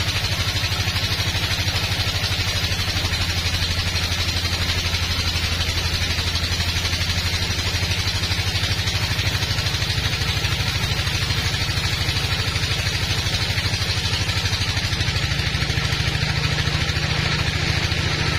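Sawmill bandsaw running steadily, a low mechanical hum with rapid fine pulsing throughout.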